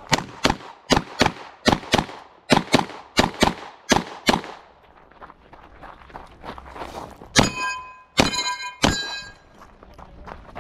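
A rapid string of about a dozen gunshots, roughly three a second. After a pause come three more shots, each followed by a ringing tone from a struck steel target.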